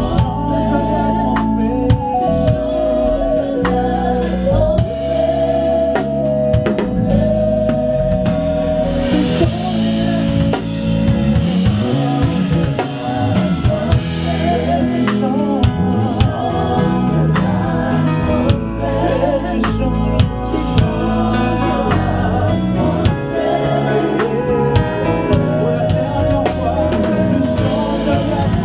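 Gospel worship band with drum kit, bass and singers rehearsing a song, voices holding long notes over a steady beat.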